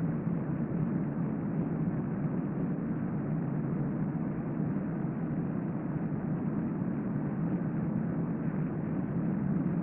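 Steady, even room noise with a low rumble, with no audible breathing or snoring rhythm in it.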